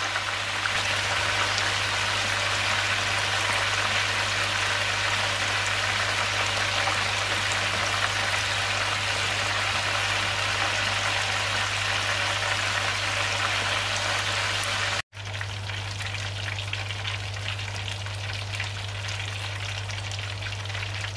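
A whole chicken deep-frying in a pot of hot oil, its second side browning: a steady, dense crackling sizzle. It cuts out for an instant about fifteen seconds in and carries on a little quieter.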